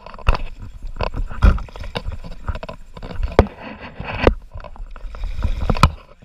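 Fast shallow river water rushing and slapping against the plastic hull of a sit-on-top kayak as it rocks downstream, with irregular sharp knocks against the hull, roughly one or two a second, over a low rumble.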